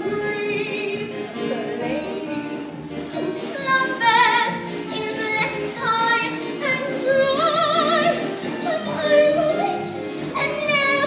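Live stage-musical song number: a woman's voice singing held notes with a wide vibrato over the accompaniment.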